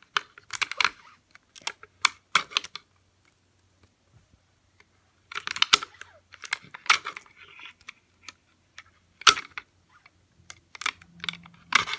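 Clear sticky tape pulled off a desk dispenser and torn in several short bursts, mixed with clicks and rustles of hands working the tape onto a paper tube.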